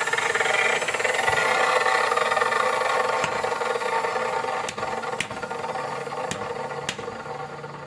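Tractor engine running steadily, growing quieter over the second half, with several sharp metallic ticks or taps in the later seconds.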